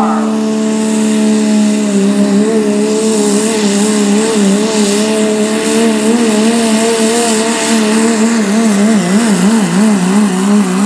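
Pro Stock Diesel 4WD pulling truck's diesel engine at full throttle under load, dragging the weight-transfer sled, held at a steady high pitch; near the end the pitch wavers up and down several times.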